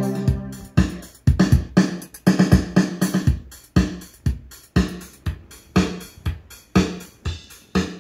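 Electronic drum-machine beat with a bass note, about two beats a second, played through a large ION PA speaker: a keyboard's built-in rhythm pattern. It starts about a second in, right after sustained organ chords end.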